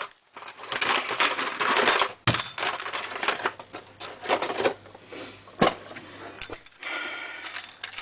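A Yale door lock and its metal parts being handled: irregular clinks, clicks and rattles mixed with rustling, in bursts.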